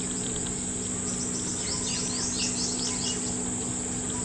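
Steady high-pitched drone of insects in the trees, with a quick run of short, falling bird chirps about one and a half to three seconds in.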